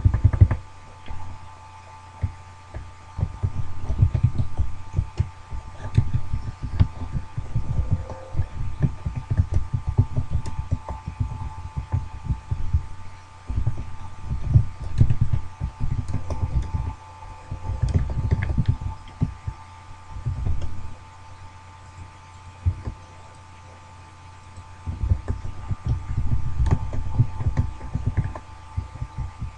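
Low, muffled thumping and rumbling in irregular clusters with short quiet gaps, over a faint steady high tone.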